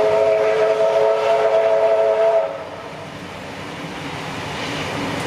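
Steam whistle of Victorian R class 4-6-4 locomotive No 766 sounding one long chord blast of several notes. It scoops up slightly as it starts, holds steady for about two and a half seconds, then cuts off, leaving the train running.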